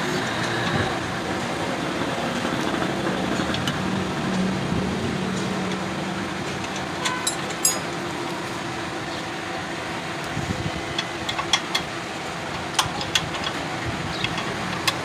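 A vehicle engine running steadily, with scattered sharp clicks and ticks over it, a pair about halfway through and several more near the end.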